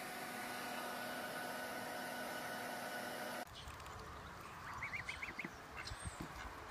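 A steady hiss with a faint hum that cuts off suddenly, followed by a low rumble and a quick run of five short high duckling peeps.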